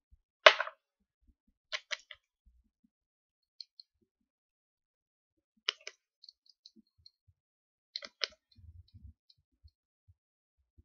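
Small clicks and taps of nail polish bottles and their brush caps being handled, in a few scattered clusters, the loudest about half a second in, with a few soft low thumps near the end.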